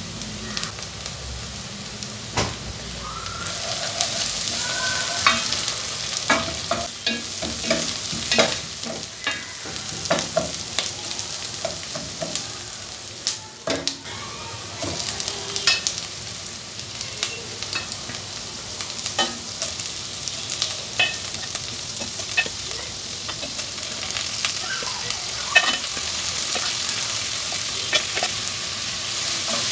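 Onions and tomato paste sizzling in a hot pot while a spoon stirs and scrapes through them, knocking against the pot in many short sharp clicks over a steady frying hiss.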